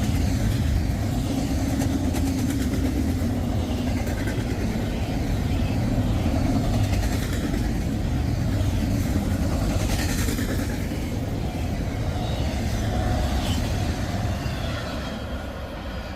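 Intermodal freight train rolling past, its cars' wheels giving a steady heavy rumble and rattle on the rails. It fades over the last couple of seconds as the end of the train goes by.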